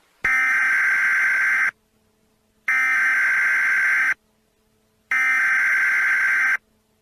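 Emergency Alert System SAME header: three bursts of digital data tones, each about a second and a half long with about a second of silence between. These coded bursts carry the alert's event, area and time ahead of the attention tone.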